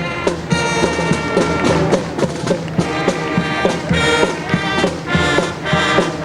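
Marching band playing: brass with a steady drum beat.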